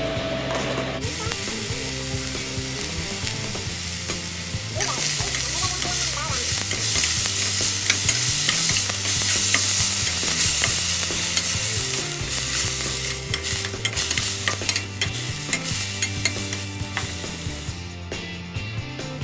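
Fried rice sizzling in a hot pan while a spatula stirs and scrapes it, with many sharp clicks. The sizzle starts about a second in, grows louder about five seconds in, and eases near the end.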